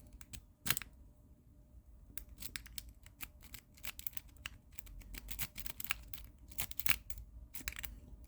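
Sparrows Octo Rake being worked in a lock's keyway: quick, irregular metallic clicks and scrapes of the rake against the pins. They come in rapid clusters from about two seconds in. The raking fails to open the lock.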